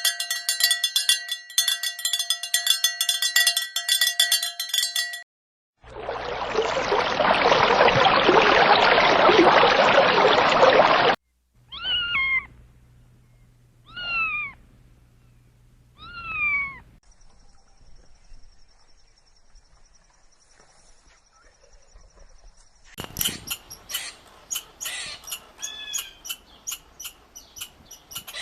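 A string of separate sounds: a buzzy, ringing tone, then a burst of loud hiss, then three short cat-like meows that fall in pitch, about two seconds apart, then rapid clicking near the end.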